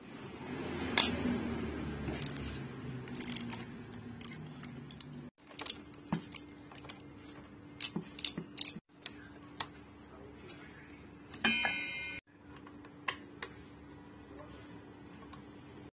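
Hand tools working a KTM Duke's front fork and axle bolts: sharp, irregular metallic clicks from a socket ratchet and a long hex key on the fastenings. There is a brief metallic ring about eleven seconds in, and the sound cuts out for an instant three times.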